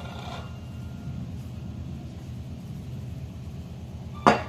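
Flour being sifted through a hand-held metal mesh sieve over a glass mixing bowl, with one sharp ringing clink of the sieve knocking against the glass about four seconds in, over a steady low hum.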